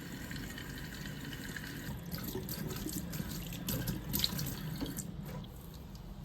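Kitchen tap running into the sink as it is rinsed, with a few light knocks and clatters in the middle. The running water eases off near the end.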